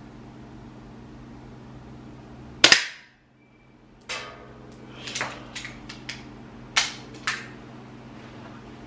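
A single sharp crack of an airsoft target pistol firing about three seconds in, followed by several lighter clicks and knocks over the next few seconds.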